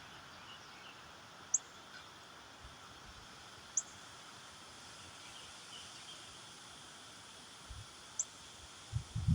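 Faint steady wind noise in a lull between gusts, with three short high chirps spread through it. A few low thumps of wind buffeting the microphone come near the end.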